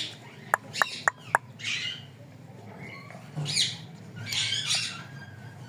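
Pet parrots calling: a run of four short, sharp chirps about a second in, followed by three harsh, raspy squawks.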